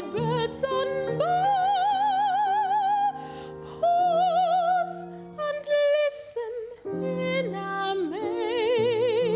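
Classically trained soprano singing opera with a strong vibrato over instrumental accompaniment, holding long notes in phrases with short breaks about three seconds and six and a half seconds in.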